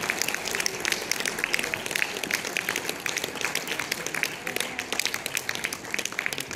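A small audience applauding, with many separate hand claps.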